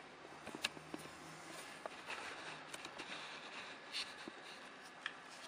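Paper brochure card being handled and held up: soft rustles with a few light clicks scattered through.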